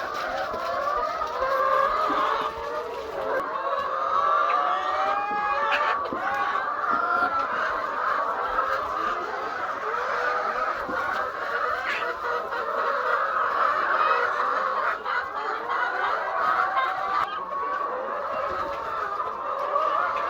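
A large flock of laying hens clucking and calling together, many voices overlapping in a steady, continuous chorus.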